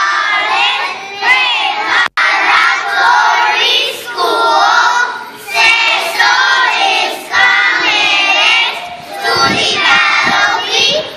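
A group of young children singing together in unison, in phrases of a second or two with short breaks between them. The sound cuts out for an instant about two seconds in.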